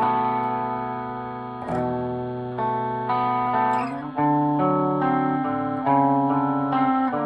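Gretsch Super Axe electric guitar strumming a series of chords, each struck and left to ring before the next.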